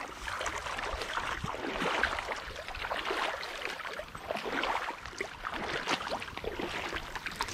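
People wading through creek water, irregular splashing and sloshing with each step over the flowing creek.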